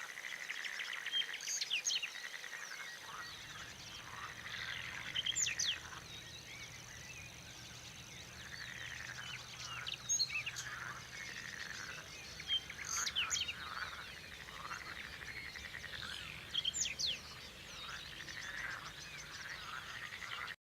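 A chorus of animal calls: rapid trilling croaks like a frog chorus, with bird chirps and quick whistled sweeps over it, rising in louder flurries every few seconds.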